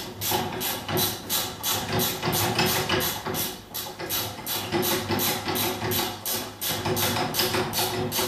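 Ratchet wrench clicking in quick back-and-forth strokes, about three a second, tightening the nut on the end of a CNC axis's acme lead screw against its bearing. A steady low hum runs underneath.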